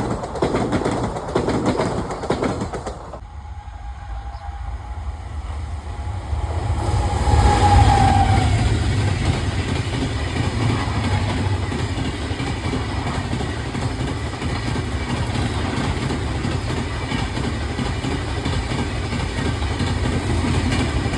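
Indian express train passing, with the rumble of the wheels and a clatter of wheels over rail joints. After a sudden change about three seconds in, a long held tone grows louder up to about eight seconds in. A steady heavy rumble of the train running by follows.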